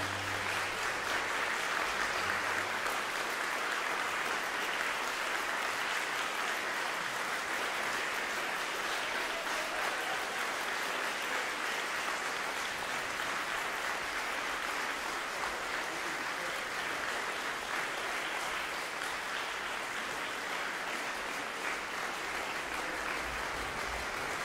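An audience applauding, a dense and steady clapping that neither builds nor fades.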